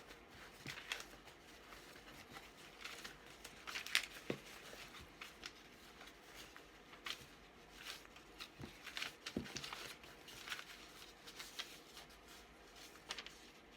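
Loose paper cut-outs and scraps rustling and crinkling as they are handled and sorted, in many short rustles, the loudest about four seconds in.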